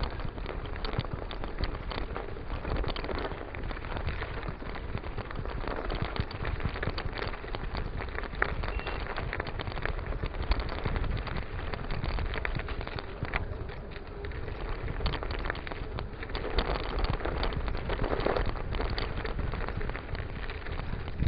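Mountain bike riding through snow on a field track: a continuous crunching, rattling crackle of tyres on snow and frozen ground, with a low rumble of wind buffeting the microphone.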